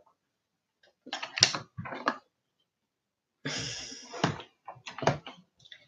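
Handling noise from small makeup items: a few clicks and knocks, then a rustling scrape about halfway through followed by more clicks.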